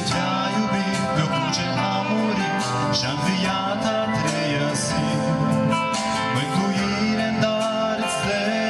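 A man singing a Christian song into a microphone over amplified instrumental backing, heard through a PA system.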